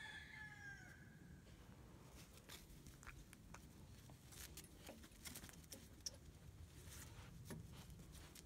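German Shepherd puppies tugging and chewing a rope toy on concrete: faint scuffles and scattered light clicks of claws and paws. In the first second there is a drawn-out animal call that falls slightly in pitch and fades out.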